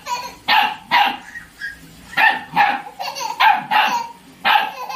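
A puppy barking repeatedly: about eight short, sharp barks, several coming in quick pairs.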